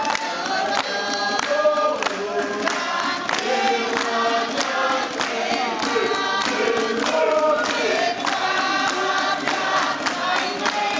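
A mixed group of men and women singing together, with sharp hand claps keeping time about twice a second.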